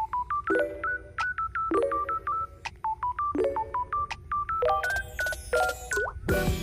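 Background music: a light melody of short beeping notes, with a low chord about every second.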